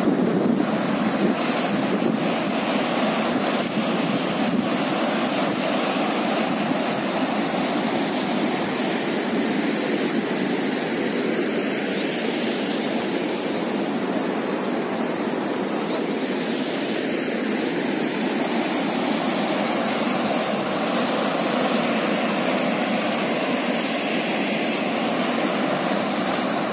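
Brook in flood after heavy rain, its muddy water rushing over a submerged low road bridge in a steady, loud, unbroken torrent.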